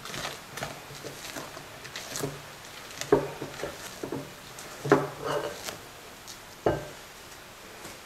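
Silicone spatula folding whipped egg whites into thick chocolate batter in a glass bowl: irregular soft scrapes, wet squelches and taps against the glass, with a few sharper knocks, the loudest about five seconds in.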